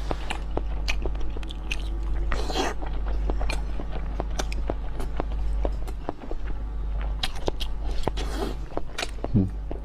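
Close-miked eating of spicy instant noodles and boiled eggs: wet chewing with many small mouth clicks, and two short noodle slurps, one about two and a half seconds in and one near the end. A steady low hum runs underneath.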